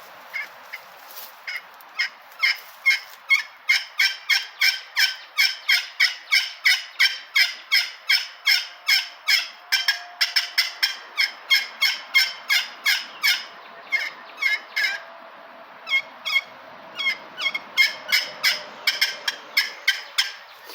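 Aluminum-surfaced pot turkey call worked with a striker, run as a kee: a long string of short, high-pitched squealing notes, about three a second, with a short break about two-thirds of the way through before the notes resume. It imitates a young hen keying.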